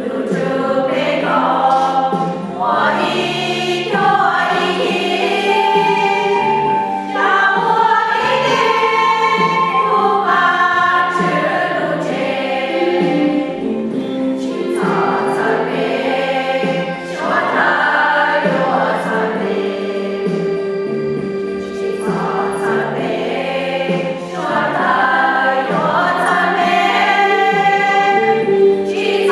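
A group of voices singing a hymn together in phrases lasting a few seconds each.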